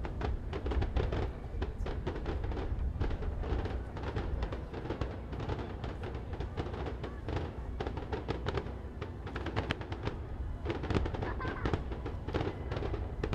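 Fireworks going off in a dense barrage: rapid, continuous crackling and popping over a steady low rumble of shell bursts.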